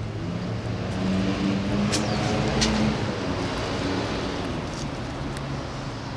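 A road vehicle driving past, its engine hum and road noise swelling to a peak about two to three seconds in and then fading.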